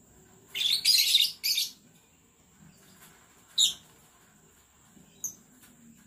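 Lovebirds giving high-pitched chattering calls: two bursts of chatter about half a second in, a single brief call near the middle, and a short chirp near the end.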